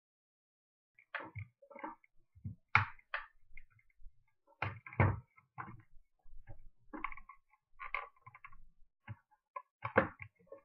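Irregular small clicks, taps and light knocks of a screwdriver and small plastic and metal parts being handled on a spring-powered airsoft rifle, as the screw holding the gas block is taken out.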